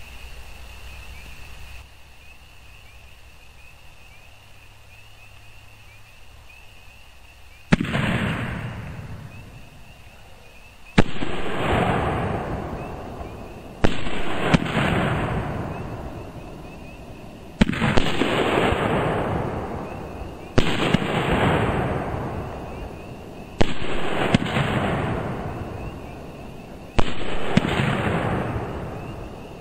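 Nine-shot 500-gram fireworks repeater cake firing 3-inch shells. After several quiet seconds, seven loud bangs come about three seconds apart, each trailing off slowly over a couple of seconds.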